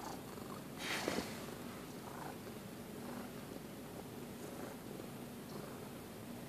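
Domestic cat purring steadily while its head is scratched, with a brief rustling noise about a second in.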